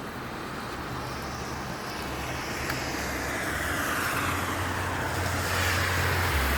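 Traffic on a rain-wet road: a steady hiss of tyres and rain over a low engine hum, growing a little louder as a vehicle passes.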